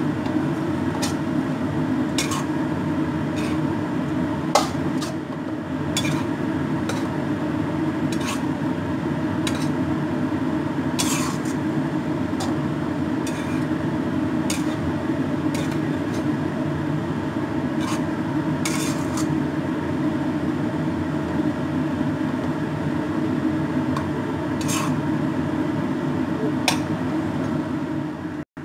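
Metal spatula scraping and clanking against a wok as rice vermicelli is stir-fried, in sharp irregular strikes over a steady low rumble.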